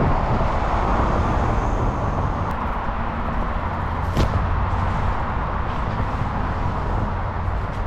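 Steady rushing noise of a mountain bike in motion, wind rumbling on the microphone and tyres running over the trail, with a sharp click about four seconds in.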